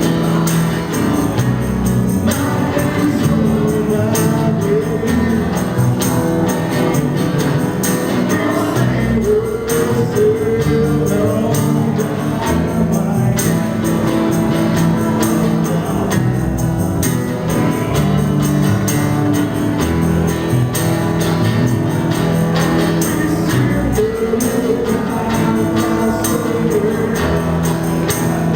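Live acoustic pop-rock band playing, with strummed acoustic guitars, cajón percussion and singing.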